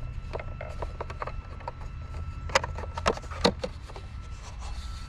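Hard objects being handled and shifted, rubbing and knocking against each other, with three sharper knocks about halfway through, over a steady low hum.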